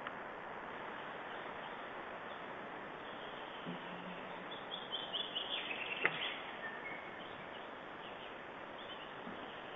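Steady hiss of outdoor forest background noise. About halfway through, a small bird gives a short run of high chirps that fall slightly in pitch, with a single sharp click among them.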